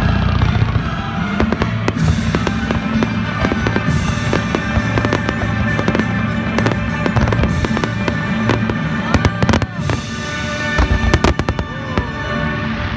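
Fireworks going off in quick succession, sharp bangs and crackles with several loud reports, over loud background music.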